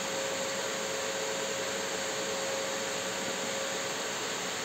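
A steady whooshing machine noise with a faint, steady hum through it, unchanging throughout.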